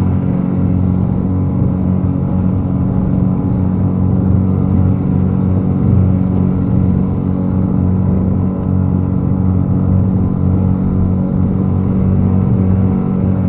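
Small boat's outboard motor running steadily underway at a slow cruise, a constant engine hum.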